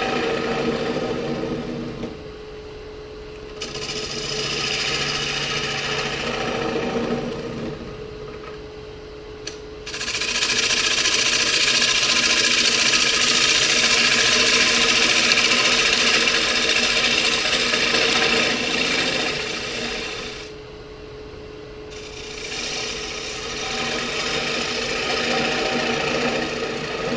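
Powermatic wood lathe running with a steady motor hum while a turning tool cuts into the spinning walnut bowl blank, hollowing the inside. There are several passes of cutting noise, the longest and loudest from about ten to twenty seconds in, with short pauses where only the lathe's hum is heard.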